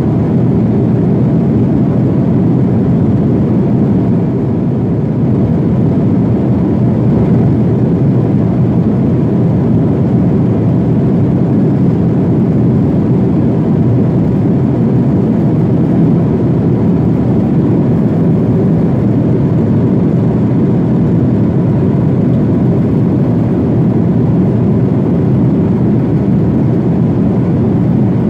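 Steady drone of a jet airliner's cabin in cruise: engine and airflow noise heard through the cabin wall, with a few faint steady tones over it.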